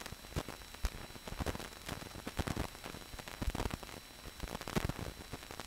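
Faint hiss with irregular crackles and clicks from an old film soundtrack; no machine sound is heard.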